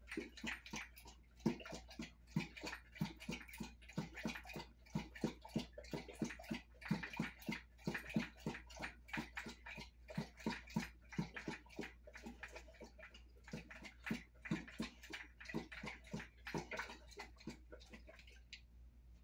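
A large mastiff-type dog lapping water from a bowl in quick, even laps of about three a second, stopping near the end.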